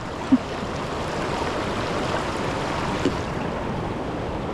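Steady rush of water pouring over a river waterfall.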